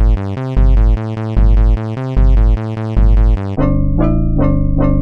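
Synthesized keyboard music: quick repeated electric-piano-like notes over a bass that pulses a little faster than once a second. About three and a half seconds in it switches abruptly to a fuller part of sharply struck notes, about three a second.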